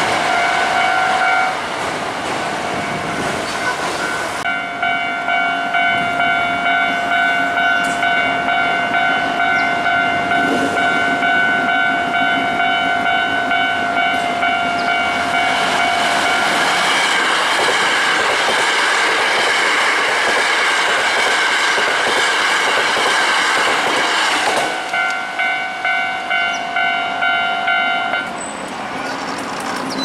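Level-crossing warning bell ringing in a steady pulsing rhythm while Hankyu 9300-series electric trains pass, wheels clacking over the rail joints. The bell drops out briefly near the start and again for several seconds midway, while a passing train is at its loudest.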